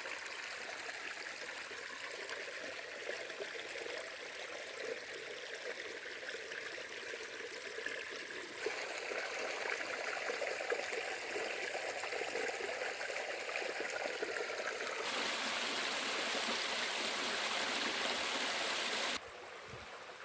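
A small seasonal brook flowing, its water trickling steadily. It grows louder in two sudden steps, about 9 and 15 seconds in, then drops abruptly about a second before the end.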